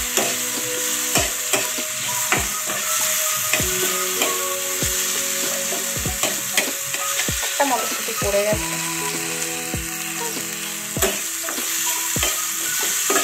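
Chopped vegetables sizzling in hot mustard oil in a nonstick frying pan while a spatula stirs them, knocking and scraping against the pan every second or so.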